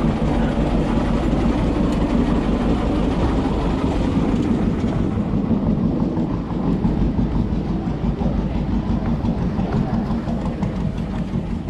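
Small river ferry boat's engine running at the pier with a steady low rumble, getting a little quieter after about five seconds.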